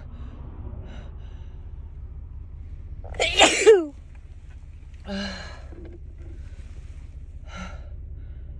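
A person sneezes once, loudly, about three seconds in. They are coming down with a cold and also dealing with allergies.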